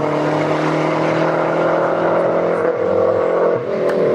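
Lancia Delta Integrale rally car's turbocharged four-cylinder engine running hard as the car pulls away up a hillclimb course. The engine note holds steady, then shifts near the end.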